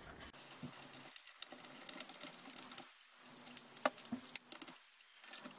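Faint metallic clicks and taps of a hand tool tightening a 14 mm bolt into the underside of an aluminium motorcycle crankcase, with a quick run of clicks a little after the middle.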